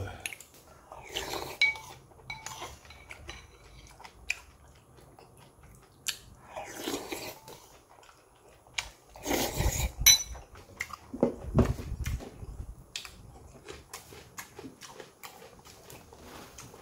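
A man eating mulhoe, cold raw-fish soup: chewing and crunching, with now and then a short clink of utensils on a dish.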